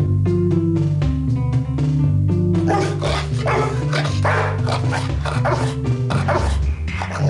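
Instrumental music with a steady beat. From about three seconds in, a dog barks repeatedly over it.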